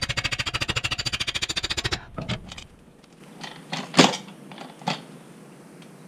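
Ratchet wrench spun quickly on the rear axle: a rapid, even run of clicks, about twenty a second, that stops about two seconds in. Then a single sharp click a couple of seconds later and a fainter one just after.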